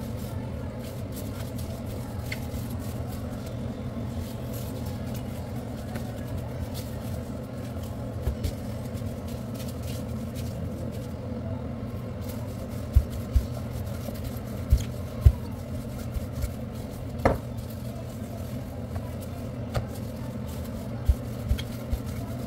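Steady low hum, with dull thuds of gloved hands pressing and slapping pizza dough on a floured kitchen counter. The thuds come in a scattered run through the second half.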